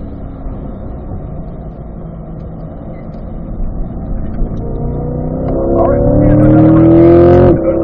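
The 2020 Corvette C8's V8 engine running steadily, then accelerating hard out of a corner with its pitch rising and growing louder for about three seconds, until a quick upshift drops the pitch near the end.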